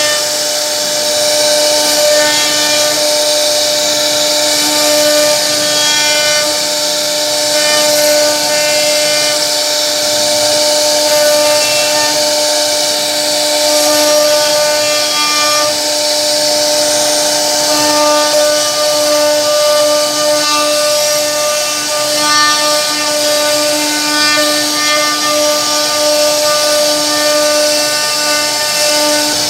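CNC router spindle running with a steady whine while its bit carves scrollwork into a wooden panel, the rough noise of the cutter chewing through the wood over it.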